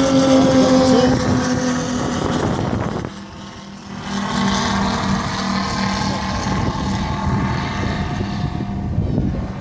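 The twin Moki 400cc five-cylinder radial engines of a giant-scale RC B-25 Mitchell running steadily in flight. The sound dips briefly about three seconds in and comes back at a lower pitch.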